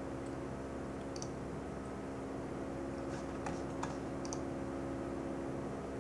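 A few light computer mouse clicks, about a second in and a quick cluster between three and four and a half seconds, over a steady low hum.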